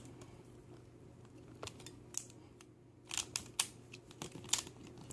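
Shengshou plastic speed cube being turned by hand: its layers click and snap as they turn, a few scattered clicks at first, then a quicker run of clicks over the last two seconds.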